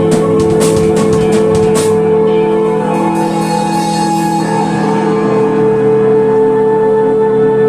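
Music: a drum beat that stops about two seconds in, leaving sustained held notes.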